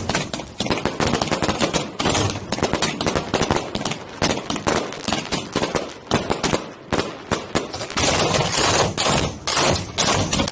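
Fireworks firing and bursting at close range: a dense, near-continuous barrage of bangs and crackles.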